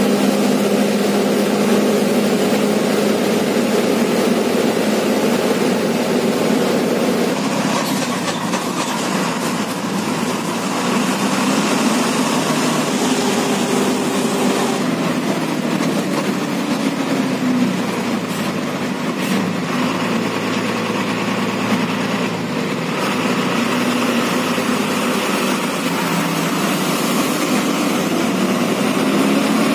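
A state transport bus's diesel engine running steadily on the highway, heard from inside at the front of the bus, with road and wind noise. The engine note shifts up and down as the bus changes speed, with occasional brief rattles.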